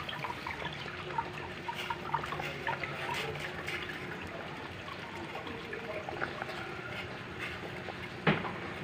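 Pot of fish soup simmering, its broth bubbling with many small crackling pops. A single sharp click sounds near the end.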